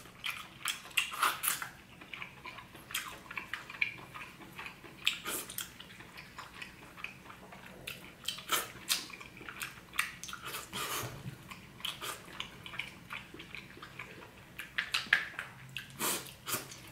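A person chewing king crab meat with the mouth closed: many short, wet clicks and smacks, coming in small clusters now and then.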